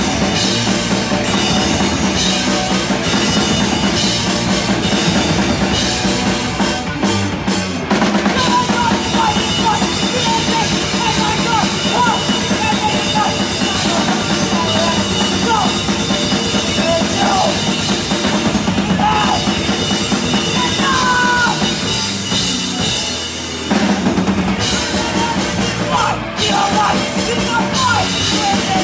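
Live rock band playing loudly: distorted electric guitar, bass and a full drum kit. A woman's vocals come in over the top about eight seconds in, and the band drops out for a moment about two-thirds of the way through.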